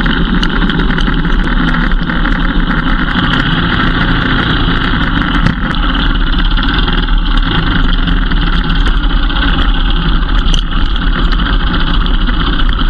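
Motorcycle riding on the road, its engine running under a steady, loud rush of wind over the microphone.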